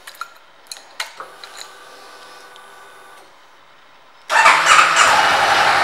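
2015 Honda CB500F being started: a few clicks as the ignition key is turned, and a faint whir from the fuel pump priming for about two seconds. About four seconds in, the starter cranks briefly, and the 471 cc parallel-twin engine catches and settles into a steady idle.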